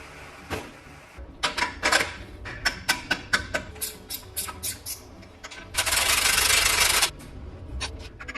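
Workshop handling sounds: a quick run of clicks and knocks, like metal parts and tools being handled, then a steady hiss for about a second and a half, and a few more clicks near the end.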